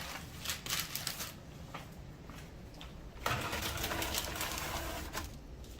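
Baking pan and oven being handled as the crescent ring goes into the oven: a few light clicks and knocks, then about two seconds of steady rushing noise from the open oven.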